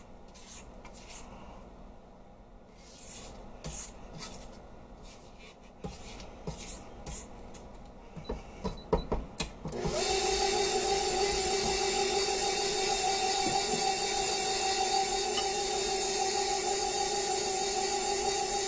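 Spatula scraping and knocking against a steel mixing bowl, then about halfway through an electric stand mixer switches on and runs with a steady hum, its flat beater working stiff cookie dough.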